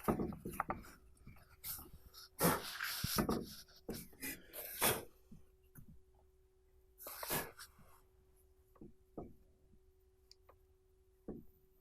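Scraping and rubbing as old rubber residue is cleaned out of a brake caliper's guide bushing bores, in irregular strokes, followed by a few light clicks in the second half.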